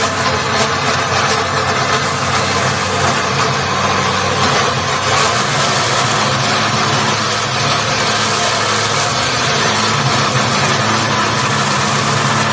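Circular cold saw for metal cutting through a 100 mm square metal tube: steady motor hum under a continuous loud cutting noise.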